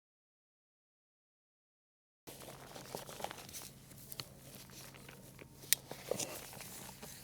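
Dead silence, then about two seconds in, faint rustling and crinkling with scattered sharp clicks over a low steady hum, like material being handled. It cuts off suddenly near the end.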